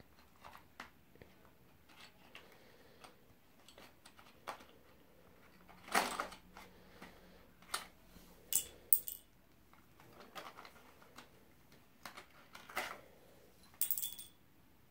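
Wooden colored pencils being handled, clicking and clattering against each other and a cardboard pencil box in scattered light knocks, the loudest about six seconds in.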